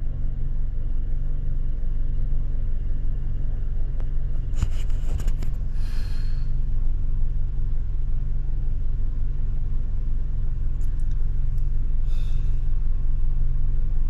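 Camper van's engine running, heard from inside the cabin as a steady low rumble, with a few brief clicks about five seconds in.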